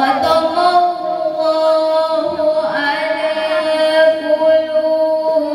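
A woman reciting the Qur'an in Arabic in a melodic chanting style, holding one long drawn-out note.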